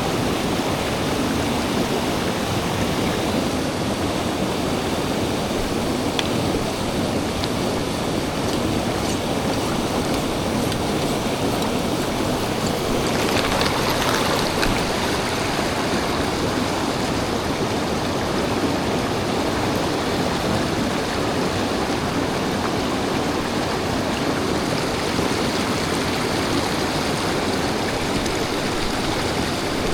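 Mountain stream water rushing steadily, a loud continuous wash of running water.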